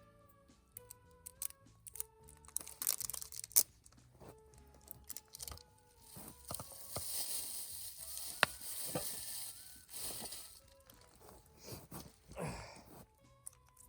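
Soft instrumental background music over handling noises from camp cooking: a cluster of sharp clicks about three seconds in, then a rustling hiss lasting about four seconds in the middle, with scattered clicks.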